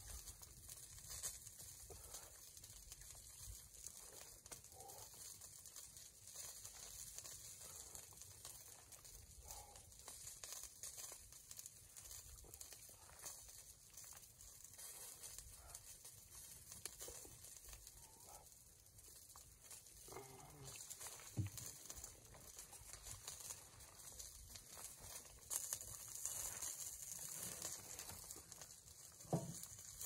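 Quiet rustling of a nylon rain poncho and small handling sounds over a faint steady hiss, with a couple of short soft knocks in the last third.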